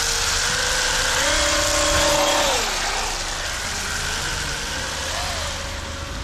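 Brushless electric motor of a radio-controlled Traxxas UDR truck whining under throttle, its pitch stepping up around a second in, holding, then dropping and rising again as the throttle changes, over a steady hiss.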